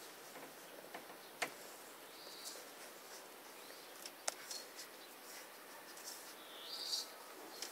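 Four-week-old golden retriever puppies squeaking faintly, short high squeaks with a longer one near the end, while they crowd in to nurse. A few sharp clicks are heard along the way.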